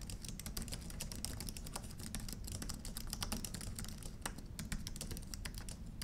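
Typing on an Apple Magic Keyboard: a quiet, continuous run of quick keystroke clicks from its low-travel scissor-switch keys.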